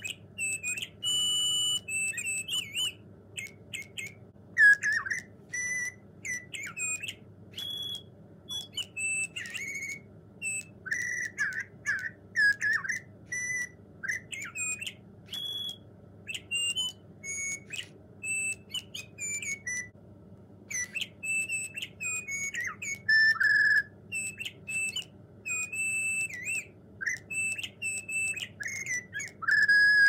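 Joy for All Walker Squawker animatronic bluebird toy playing its songs through its small speaker: a quick string of electronic chirps and whistled notes, some gliding up or down in pitch, with a brief pause about twenty seconds in.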